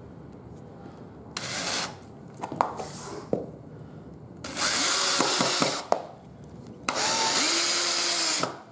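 Cordless drill running in three bursts as it works into thick wood for deck screws: a short burst about a second and a half in, then two longer ones of about a second and a half each. A few sharp clicks and knocks fall between the bursts.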